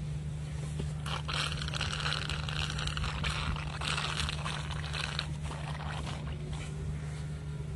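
Gas and fluid escaping in hissing spurts through a toggle trocar set in a cow's left-displaced abomasum as it is deflated, strongest over the first half, above a steady low hum.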